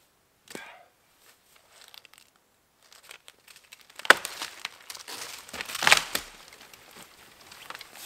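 Dead tree branches being snapped and broken off: a sharp crack about four seconds in, then splintering and crackling wood with a louder crack around six seconds.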